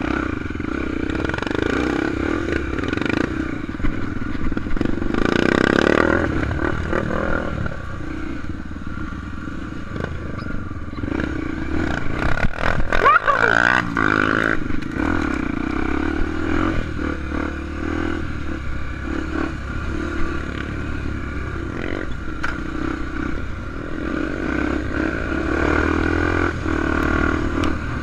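Honda XR250 Tornado enduro motorcycle's single-cylinder engine running while being ridden over rough off-road ground, its pitch rising and falling with the throttle. Around halfway through there is a louder stretch of clattering and rattling.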